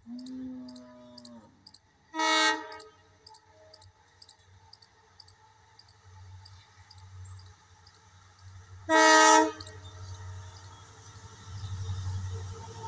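Indian Railways diesel locomotive sounding its horn in two short, loud blasts, about 2 seconds in and again about 9 seconds in, as it approaches. The low rumble of the oncoming train grows louder near the end.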